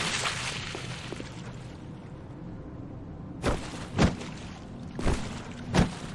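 Designed sound effect for a fictional parasite creature: a noisy rush fades away over the first second or so. Then comes a low steady hum, broken by four sharp hits from about three and a half seconds in.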